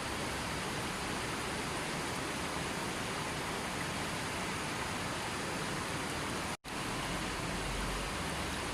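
River water flowing steadily, an even rushing noise. It is broken once by a split-second gap of silence about six and a half seconds in.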